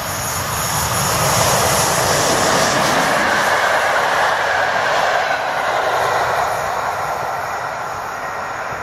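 Electric-hauled passenger train passing through at speed. The rush of wheels on rails builds over the first second or so, holds steady, then fades as the coaches go by and away.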